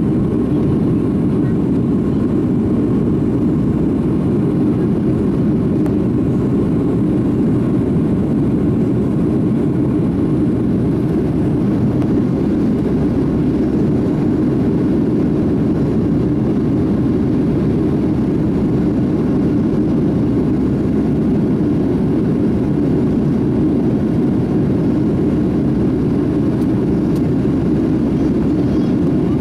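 Steady cabin noise of a Boeing 757 airliner climbing after take-off, heard inside the cabin from a window seat over the wing: an even, low-pitched wash of engine and airflow noise that does not change.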